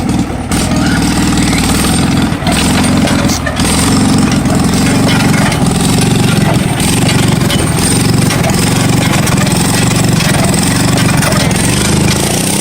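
The original 17 hp Wisconsin engine on a Ford 14-71 hay baler runs steadily under load, driving the baler, with the baler's mechanism knocking now and then.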